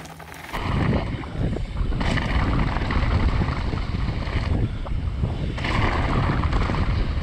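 Wind buffeting the microphone of an action camera on a mountain bike descending a loose gravel trail at speed, mixed with the rumble and rattle of the tyres over the stones. The loud noise starts abruptly about half a second in.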